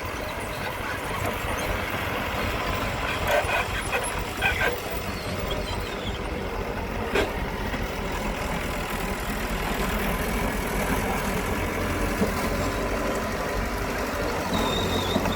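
Diesel engines of heavy earthmoving machinery running steadily, with a few short metallic clanks. A deeper low rumble comes in about a third of the way through.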